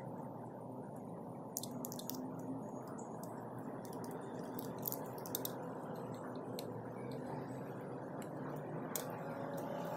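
Fingers pressing and pinching puff pastry edges closed: soft sticky squishes with a few light clicks, over a steady low background hiss.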